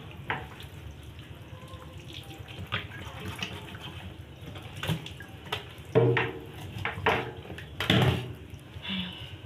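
Tap water running into a kitchen sink while pieces of raw pork are washed by hand, with scattered knocks and splashes as the meat is handled in the basin.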